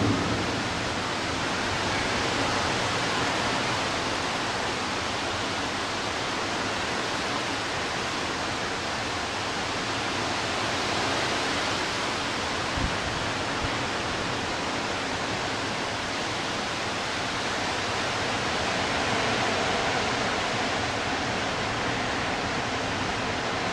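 Steady rushing hiss of a severe thunderstorm's heavy rain and strong wind, with a couple of faint knocks about halfway through.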